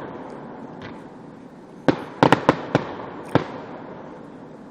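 Fireworks exploding, heard through a cell phone: a fading rumble, then a quick run of about five sharp bangs about two seconds in, and one more a second later.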